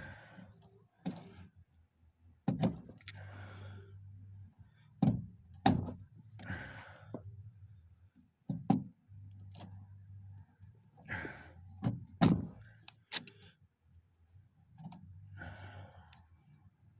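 A screwdriver scraping and picking at the insulation on thin car wiring, in short scratchy strokes broken by sharp clicks and knocks of the tool against wire and metal.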